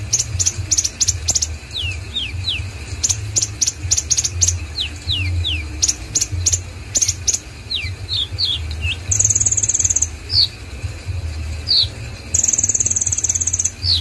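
Male kolibri ninja sunbird singing: rapid clusters of high chittering trills mixed with short falling whistles, and two longer buzzing trills in the second half, over a low steady hum.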